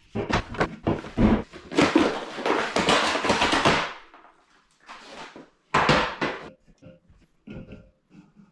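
Full aluminium soda cans set down one after another on a hard surface in a quick series of knocks, with a longer rustling scrape of the cardboard case about two seconds in and another few knocks later on.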